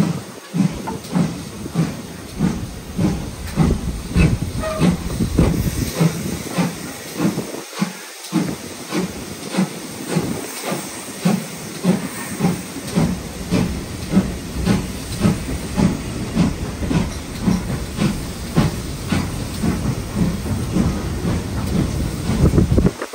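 Steam locomotive working, its exhaust beats coming in an even rhythm over a constant hiss of steam.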